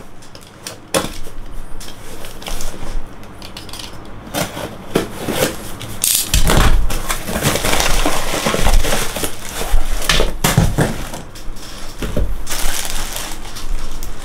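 A parcel being torn open by hand: packaging crinkling and tearing, with scattered clicks and knocks from small hard parts being handled. It goes irregularly, with louder stretches about halfway through and near the end.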